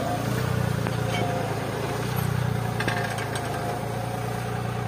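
Tractor's diesel engine running steadily while it pulls a mounted disc plough through the soil, with the draft control set.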